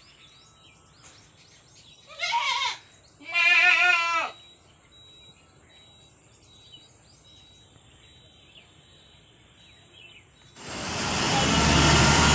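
A goat bleats twice, a short falling call and then a longer, wavering one. Near the end a bus passes close, its engine and road noise rising and staying loud.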